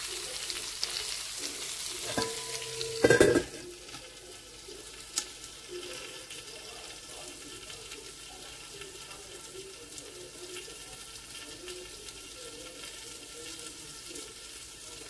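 Chicken pieces sizzling without oil in a stainless-steel Saladmaster skillet. About three seconds in, the steel lid clanks onto the pan with a brief metallic ring, and the sizzling carries on more softly under the lid.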